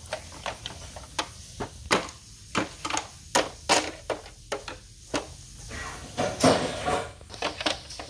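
A string of irregular sharp clicks and knocks, with a short rustling scrape about six and a half seconds in.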